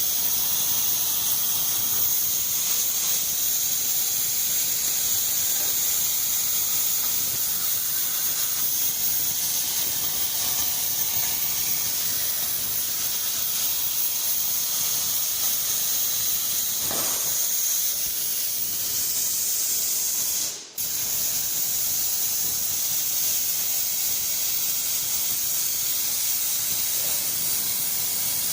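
Hypertherm Powermax 85 air plasma torch cutting on a CNC table, a steady loud high-pitched hiss of the arc and air jet. The hiss cuts out for a split second about two-thirds through, then carries on.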